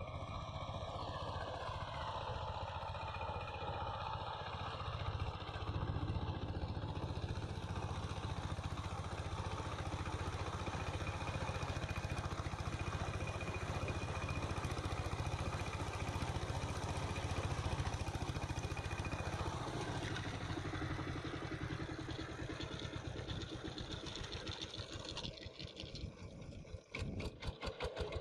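Two-wheel power tiller's single-cylinder diesel engine running steadily under load as the rotary tiller churns dry soil, a dense fast chugging. Near the end the load comes off and the engine eases back to slower, separate firing beats.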